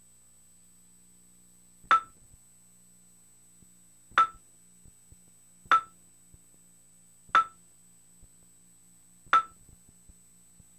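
MSN TV 2 user-interface sounds: five short blips, one for each key press as the selection box moves or a registration page advances, spaced about one and a half to two seconds apart over a faint steady hum.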